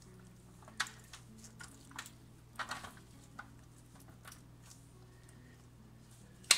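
Sparse faint clicks and taps of a wire rack shifting in a metal baking pan as raw butterflied chicken is pressed down and arranged on it, with a sharper click near the end.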